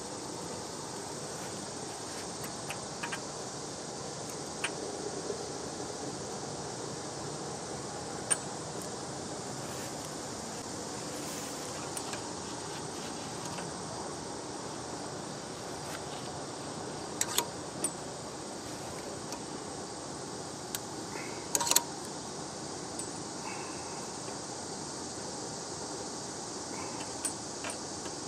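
Scattered sharp metallic clicks and clinks of a heavy steel snap ring and snap ring pliers being worked onto a hydraulic cylinder pin, seating the ring in its groove. The loudest clicks come in a quick cluster about three quarters of the way through.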